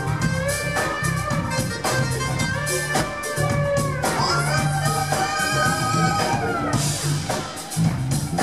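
Live pop-rock band playing: drum kit and bass keeping a steady beat, electric guitar, and a melody of held, sliding notes over the top.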